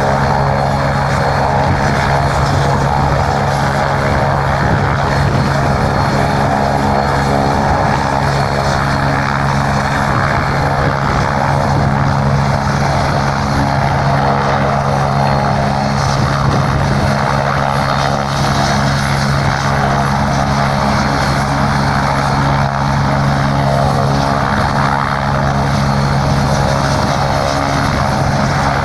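Medical helicopter's turbine engines and rotor running steadily, a constant whine and low drone with no rise or fall.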